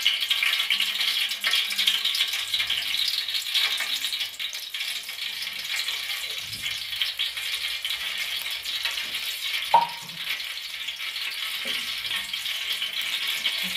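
Cooking oil sizzling and crackling steadily as it heats in a large aluminium pot on the stove, with one short clink a little under ten seconds in.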